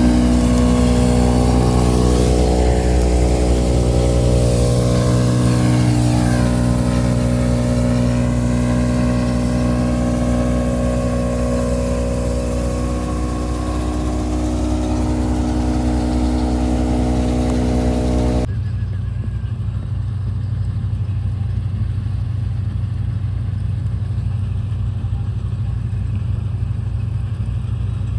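Combine harvester's engine running steadily at constant speed. About two-thirds of the way through, the sound changes abruptly to a duller, lower running noise.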